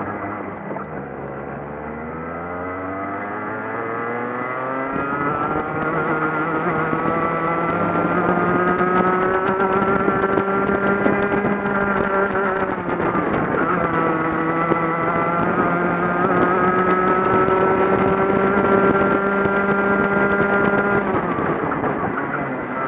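A racing kart's two-stroke engine heard from on board, pulling hard out of a slow corner with its pitch climbing steadily for several seconds. It is then held high down the straight, with a short dip and recovery just past halfway, and the revs fall away near the end.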